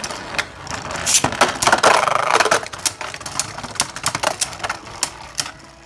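Beyblade Burst spinning tops knocking against each other and the plastic stadium: rapid clicks and clacks, densest about two seconds in.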